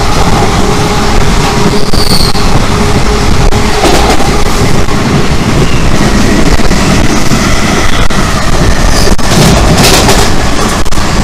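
Loud, steady rushing and clattering of a freight train of open wagons passing close by at speed on the next track, heard from the open cab door of a moving locomotive. A few sharp clanks come near the end.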